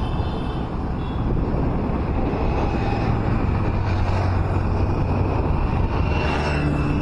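Highway road and traffic noise: a steady rumble of tyres and wind, with a low vehicle engine hum that grows stronger about halfway through and a second engine tone near the end.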